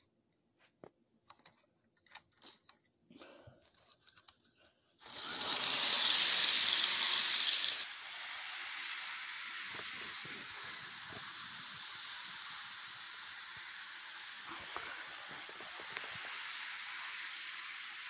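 Faint scattered clicks, then about five seconds in a steady whirring hiss starts abruptly: an HO-scale model train running around its track, loudest for its first three seconds and then even.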